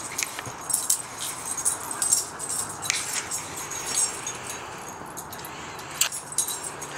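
Two dogs playing rough: scuffling, with many scattered sharp clicks and light jingles.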